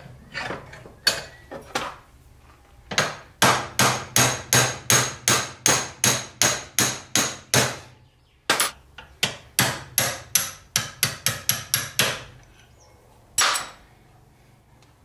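Hammer blows driving a small steel shaft out of a ball bearing that rests on the jaws of a bench vise, each a sharp metallic tap. A few scattered taps come first, then a steady run of about three blows a second for several seconds. After a short pause a second run quickens toward its end, and a single blow comes near the end.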